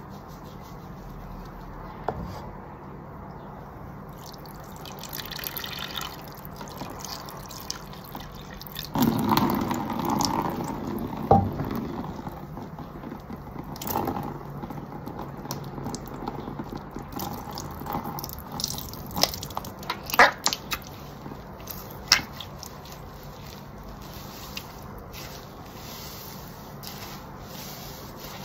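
Water running and dripping off a soaked car wash sponge into a plastic basin. It is loudest about a third of the way in, and a few sharp wet clicks come later.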